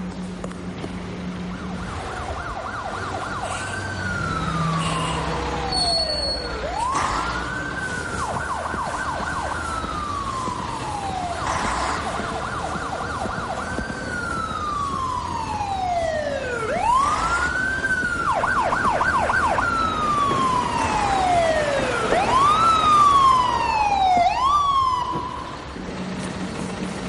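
Electronic siren wailing in long cycles: the pitch rises quickly, holds high with a rapid warble, then falls slowly, about every five or six seconds. Near the end it switches to quicker, shorter yelps.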